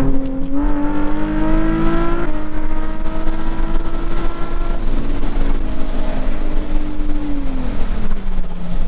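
Nissan 350Z's 3.5-litre V6 through a cat-back exhaust with the muffler deleted, accelerating with the note climbing over the first two seconds. It then holds a steady cruise note and drops back near the end as the throttle eases.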